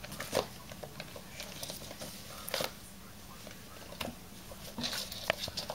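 Kittens scampering and pouncing on a hardwood floor: irregular light taps and scratches of paws and claws, with a few louder bumps.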